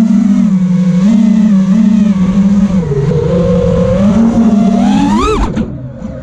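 Brushless motors of a 5-inch FPV quadcopter whining in flight, the pitch wavering up and down with the throttle. About five seconds in the pitch climbs sharply, then the throttle is cut and the whine drops away as the quad flips upside down.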